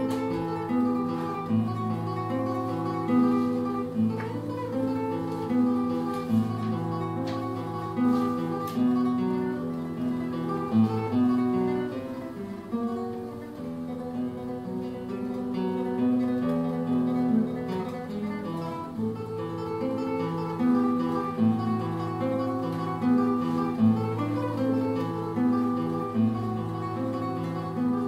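Solo nylon-string classical guitar being played fingerstyle, a melody over a bass line.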